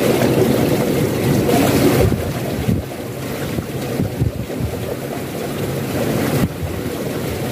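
Steady rushing of water churning as it flows into a small concrete irrigation ditch.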